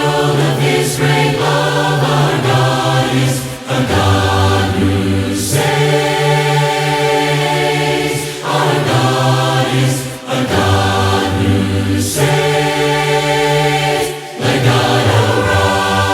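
Group of voices singing unaccompanied in harmony, a cappella church song, in long held phrases of a few seconds each with short breaks for breath.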